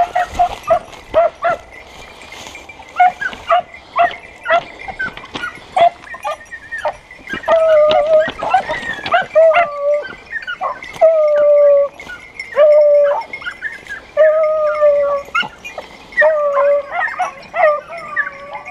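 Hunting dog baying: short yelps at first, then from about seven seconds in, longer drawn-out bays repeating every second or two.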